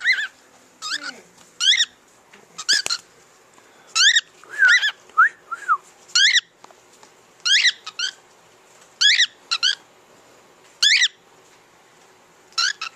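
Pet bird calling: a series of short, sharp chirps, roughly one a second and sometimes two in quick succession.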